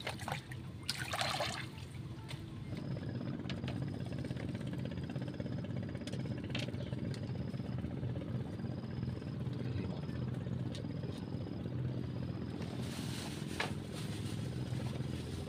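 An engine running steadily, a low hum that sets in about two and a half seconds in. Over it, a short high chirp repeats about every two-thirds of a second.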